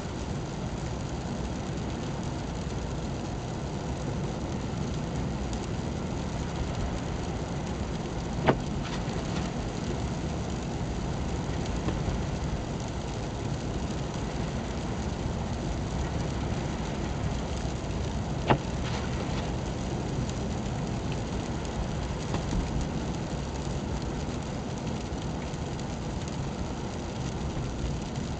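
Steady road and engine noise heard from inside a car driving on a snow-covered road, with two sharp clicks about ten seconds apart.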